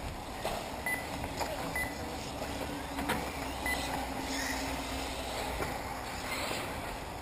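Electric 1/8-scale RC off-road buggies running on the track: a steady bed of tyre and motor noise with scattered sharp clicks and knocks as the cars land and bump. A few short high beeps sound about one, two and nearly four seconds in.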